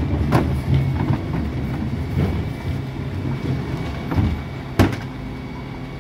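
Dennis Elite 6 refuse truck running at the kerb, a steady low hum, while wheelie bins are hooked onto its Terberg bin lift: a knock about half a second in and a louder sharp bang near the end as a bin strikes the lift.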